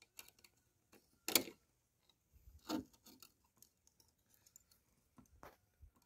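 Pliers twisting wire against a plastic meter base, tying the base down: scattered clicks and scrapes, the loudest about a second in and again near three seconds.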